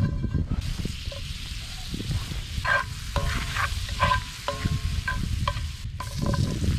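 Fat sizzling in a cast iron skillet on campfire coals, over a low rumble. Several short ringing metallic clinks come through the middle, as the skillet is handled.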